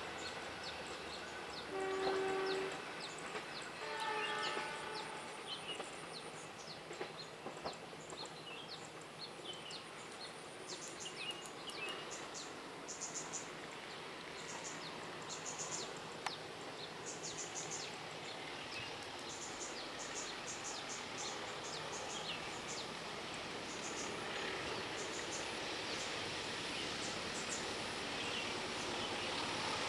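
Distant train horn sounding two short blasts about two seconds apart, followed by birds chirping over steady outdoor ambience that grows slightly louder near the end.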